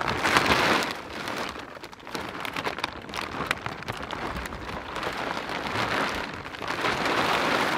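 A plastic tarp rustling and crinkling as it is handled and pulled back off a stack of lumber, a continuous crackle that swells and eases several times.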